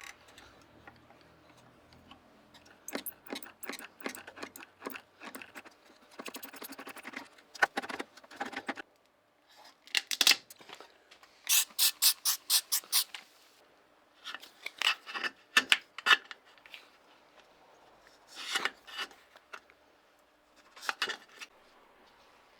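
Hand-tool work on a part: short rubbing or scraping strokes in irregular bursts, with a quick run of about five strokes a second near the middle.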